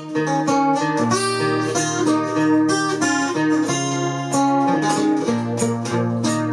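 Acoustic guitar played fingerstyle: a picked melody line over bass notes, several notes a second, with no singing.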